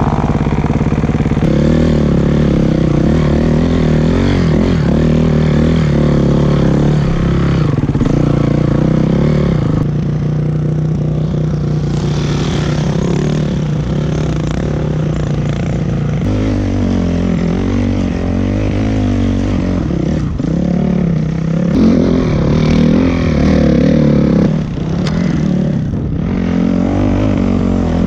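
Dirt bike engines running under heavy load through deep snow, the pitch rising and falling with the throttle.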